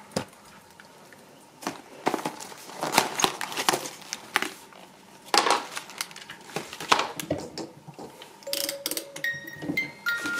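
Candy wrappers and a cardboard box being handled, with irregular crinkling and rustling of the wrapped chocolates in their tray. A simple chiming melody of music comes in near the end.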